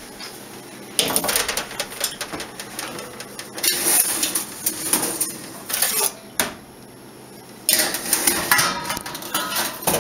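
Metal baking sheet and oven rack clattering and scraping as the tray is slid into the oven, in two long stretches of rattling with a short lull between.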